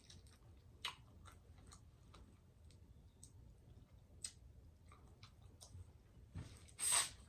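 A person eating close to the microphone: quiet chewing with scattered small wet mouth clicks, and one louder noisy sound of under a second near the end.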